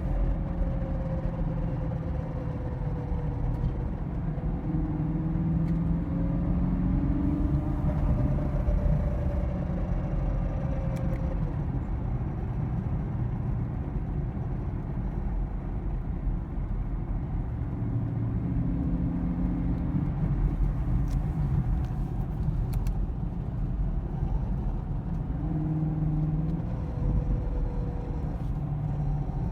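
2016 Chevrolet Camaro SS's 6.2-litre LT1 V8 running with a steady low rumble and a faint, slowly wavering whine. The engine is throwing a P0300 random-misfire code, and this is the noise the owner hears coming from it.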